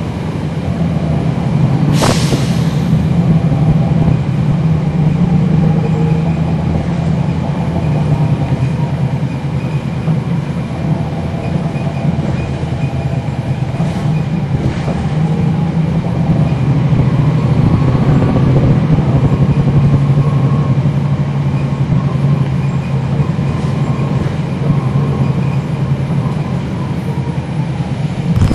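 Inside a NABI 40-SFW transit bus under way: the Cummins ISL9 inline-six diesel runs with a steady low drone, and a whistling whine from the ZF Ecolife six-speed automatic transmission sits above it. A single sharp clack sounds about two seconds in.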